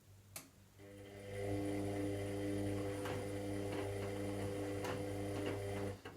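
Washing machine motor whining steadily for about five seconds during a synthetics warm-wash cycle. It starts after a click and stops suddenly, with a few faint clicks while it runs.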